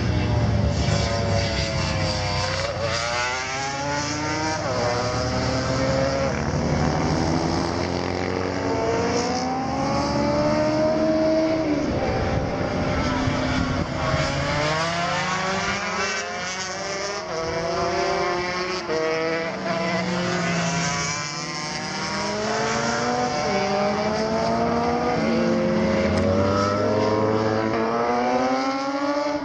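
Several racing motorcycles passing one after another, their engines revving up in repeated rising sweeps as they shift through the gears.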